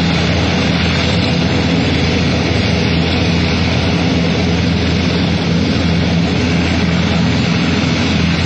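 AVIC AC313 heavy helicopter running on the ground with its main rotor turning: a loud, steady rumble and whine from the turboshaft engines and rotor, holding an even level with no change in pitch.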